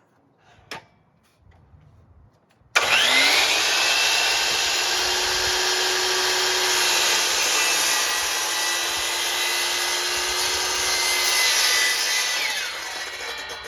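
Cordless saw starting about three seconds in with a rising whine, then cutting steadily through a sheet of plywood for about ten seconds before the motor winds down near the end.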